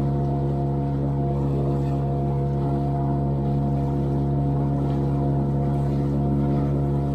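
A boat engine running steadily at constant speed, an even low hum that does not rise or fall.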